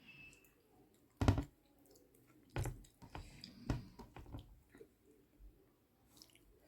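Close-up eating sounds: a mouthful of rice and curry being chewed, with a string of short wet smacks and clicks. The loudest is a sharp smack about a second in, followed by a cluster of smaller ones.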